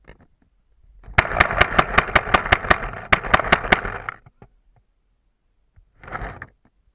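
Paintball marker firing a rapid string of about fifteen shots, about six a second, with a brief break partway through. A short burst of noise follows near the end.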